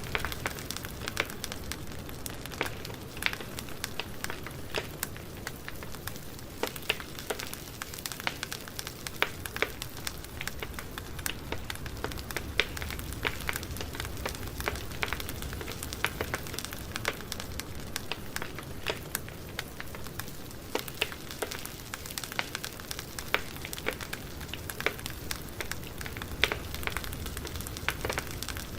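Campfire burning, with a steady low rush of flames and frequent irregular sharp pops and crackles of burning wood.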